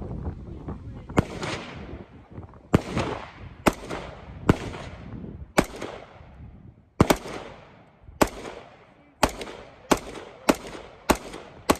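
A DPMS AR-15 rifle firing .223 rounds in semi-automatic: about a dozen sharp shots, each with a short echoing tail. The shots are unevenly spaced and come faster toward the end.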